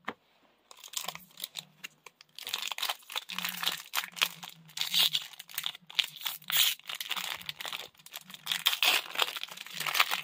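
Foil wrapper of a Pokémon booster pack crinkling and tearing as it is handled and opened by hand, an irregular crackle that starts about a second in.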